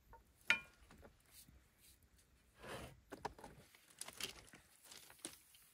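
A metal utensil clinks once against a frying pan about half a second in, ringing briefly, followed by a short rustle and scattered light clicks.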